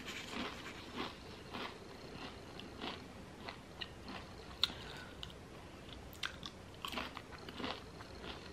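Close-up chewing and crunching of chili lime Quest protein chips, with irregular crisp crunches and one sharper crack about halfway through.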